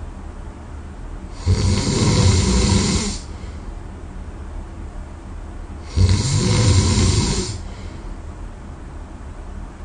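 A person snoring heavily in deep sleep: two long, loud, fluttering snores, each about a second and a half, some four and a half seconds apart, with quieter breathing between.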